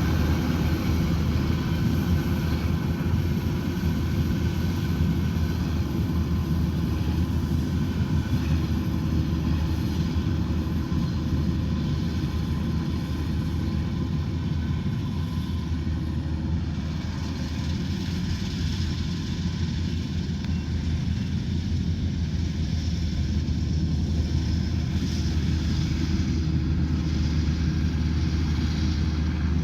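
Rice combine harvester's diesel engine and machinery running steadily, a deep, even drone that dips slightly in level around the middle.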